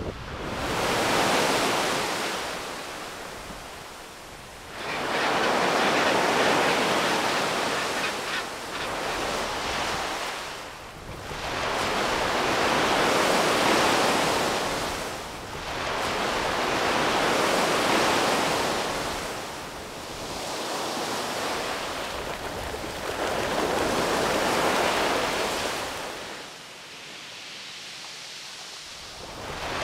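Ocean surf breaking on the shore, the wash of each wave surging and fading about every four seconds.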